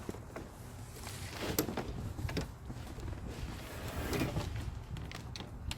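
Scattered knocks and scrapes of a lawn mower being handled out of its cardboard shipping box, over a low steady rumble.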